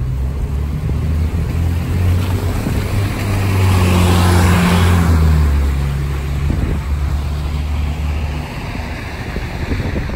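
Hybrid city bus driving past, its engine hum swelling to loudest about four to five seconds in, then fading and dropping away near the end.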